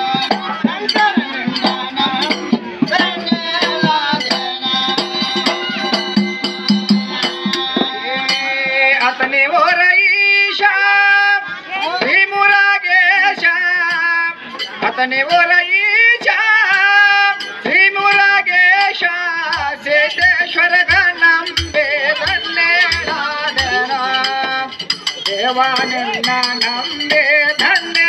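Gigi pada folk song performed live. Men sing in turns from about nine seconds in, over a hand-held frame drum and jingling, rattling percussion.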